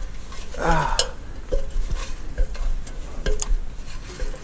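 A metal ladder knocking and scraping as someone climbs its rungs against a tree trunk, with several sharp clanks about a second in and again past three seconds.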